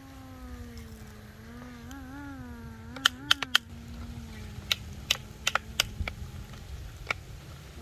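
RC model excavator's motor whining steadily, its pitch wobbling as it works, then cutting out near the end. Sharp metallic clicks and clinks come in two clusters over the whine.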